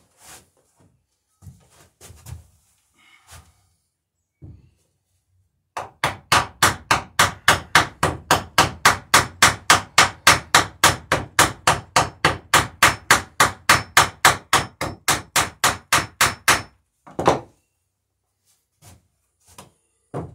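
A hammer driving a fastener through a wooden cross cleat into a boat's plank bottom: quick, even blows, about four a second, for about eleven seconds, beginning some six seconds in. A few light knocks of tools being handled come before, and one heavier knock comes just after.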